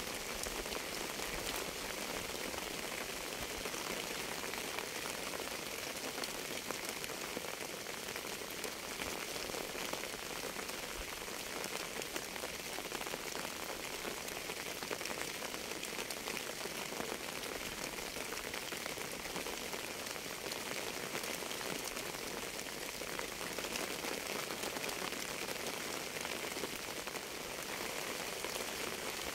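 Steady rain: an even wash of many small raindrops that does not change or break.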